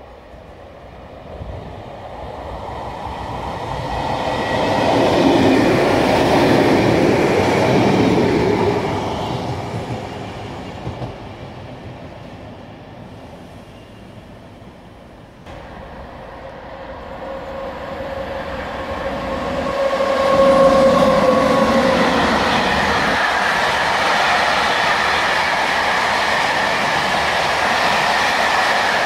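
An electric passenger train passes, its rumble building to a peak and fading away. After an abrupt cut, a long freight train of open wagons and tank wagons approaches and rolls by steadily with clickety-clack wheel noise and a few steady ringing tones over the rumble.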